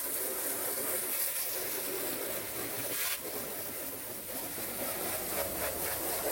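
Garden hose spray nozzle jetting water against a gel-coated boat hull, a steady hiss of spray and splashing as the hull cleaner is rinsed off.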